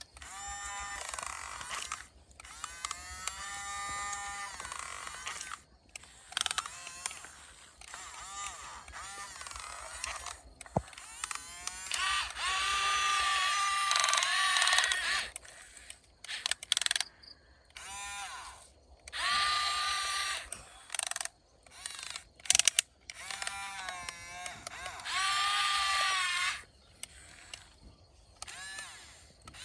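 Remote-control excavator's electric motors whining in repeated bursts, the pitch rising and falling as each movement speeds up and slows, with pauses between moves and a few sharp clicks.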